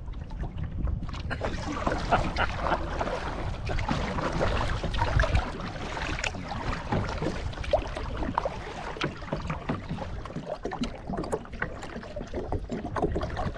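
Kayak paddle strokes dipping into calm water, with irregular splashes and drips off the blades over a steady low wind rumble on the microphone.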